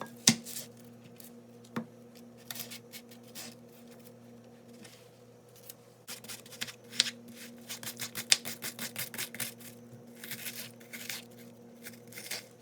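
Knife chopping an onion on a cutting board: scattered single cuts at first, then a quick, even run of strokes from about six to nine and a half seconds in. A steady low hum runs underneath.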